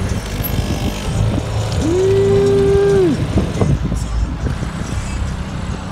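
Car pulling away with a steady low rumble. About two seconds in, a long drawn-out shout, held on one pitch for about a second, rises over it and falls away.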